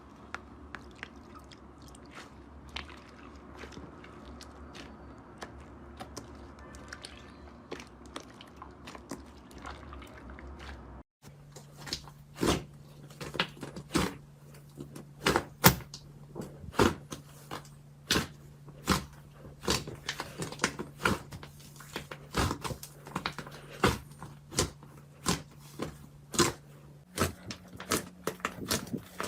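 Slime being squeezed and poked, making an irregular run of sharp clicks and pops that get louder and closer together after a short break about eleven seconds in, over a faint steady hum.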